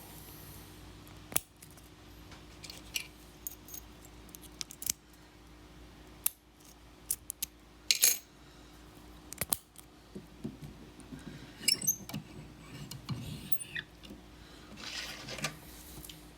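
Lock pick and tension wrench working a small brass padlock: scattered sharp metal clicks, taps and light scraping, with a few louder clinks about 8 and 12 seconds in.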